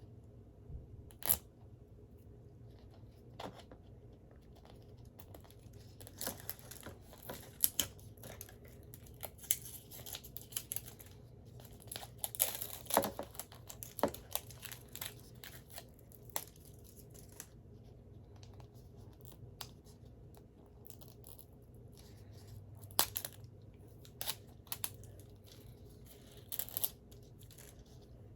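Packaging being worked at and torn open by hand: scattered short rustles, crinkles and sharp snaps with pauses between, busiest in the middle and again near the end.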